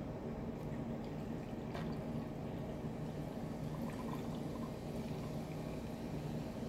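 Canned peach alcoholic drink poured over ice into a glass.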